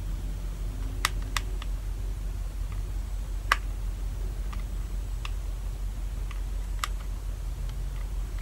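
A few short, sharp clicks at irregular intervals over a low steady hum.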